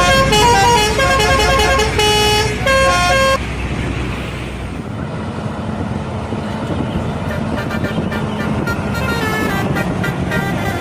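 A bus's 'telolet' musical air horn plays a quick tune of short stepped notes, stopping about three and a half seconds in. Engine and road noise follow.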